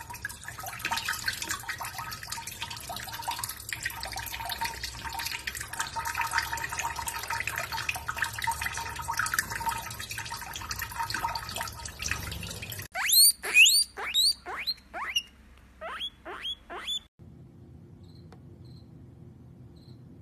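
Water running from a kitchen tap, splashing into cupped hands and a steel sink while a small songbird is bathed. About thirteen seconds in the water stops. A quick run of about nine sharp, high chirps follows, each rising in pitch, louder than the water.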